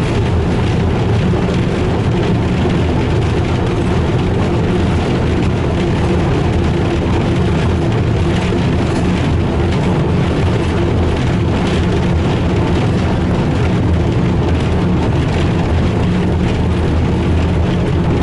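Class 03 diesel shunter's Gardner eight-cylinder diesel engine running steadily as the locomotive travels along the line, an even low drone with no change in pitch.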